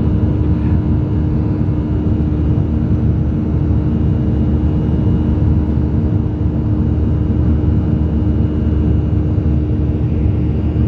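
Steady cabin noise of a Boeing 737-800 in flight: the even drone of its CFM56 turbofan engines and airflow, with a constant low hum.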